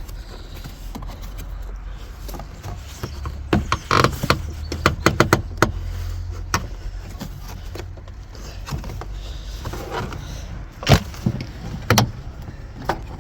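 Plastic car-interior trim clips and cover being worked loose by hand: scattered clicks and knocks, a quick run of them about four to six seconds in and two sharp knocks near the end, over a low steady hum.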